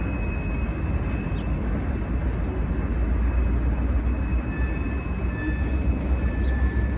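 Norfolk Southern manifest freight train of covered hopper cars rolling past, a steady heavy rumble with faint thin high-pitched squeals coming and going.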